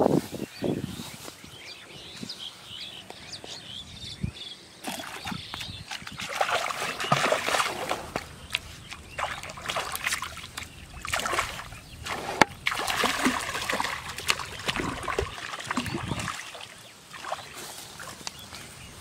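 A hooked fish thrashing at the surface of shallow canal water, splashing in irregular bursts over several seconds.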